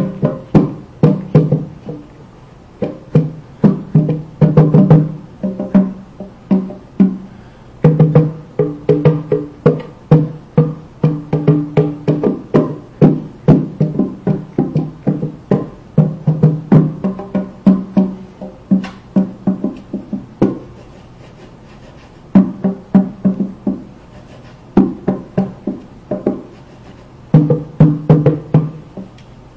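Bongo drums struck by hand in quick, irregular flurries of beats, with several short pauses in the last third.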